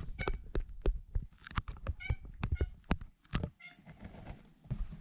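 A cat making a few short, soft meows among irregular clicks and knocks.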